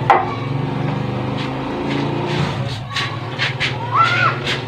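An engine running steadily with a low, even hum, with a sharp knock just after the start and a few short high calls near the end.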